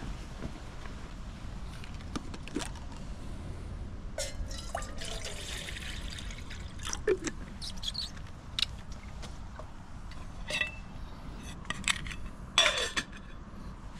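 Liquid sounds: a short run of pouring or trickling, drips and scattered light clicks, with a louder splash or clink near the end.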